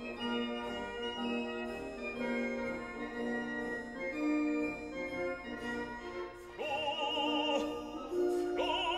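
Music: slow, held organ chords, joined about six and a half seconds in by an operatic singing voice with a wide vibrato.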